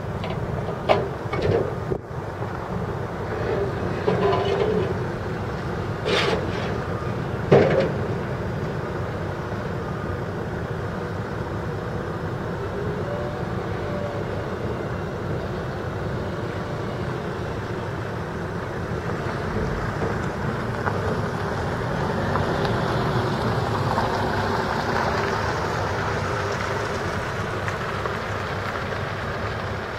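Wheel loader's diesel engine running steadily, with several sharp knocks in the first few seconds. The engine grows a little louder later on as the loader comes nearer.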